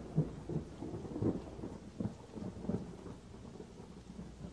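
Low rolling thunder over steady rain, dying down toward the end.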